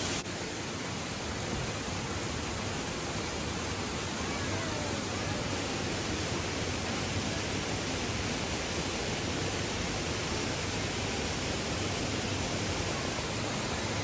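Steady rush of falling water: a waterfall streaming over moss-covered rock into a fast-flowing river.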